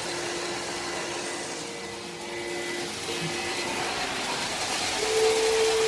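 Model electric train running on the layout track: a steady motor whir with a faint humming tone, which gets louder and higher about five seconds in.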